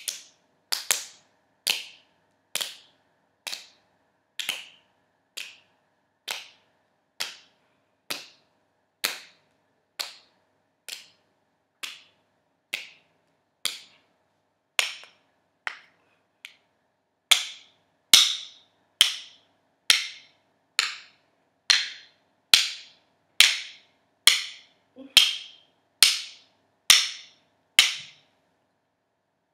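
Wooden spoons knocked in a steady beat, just over one sharp wooden clack a second, about thirty in all, louder in the second half.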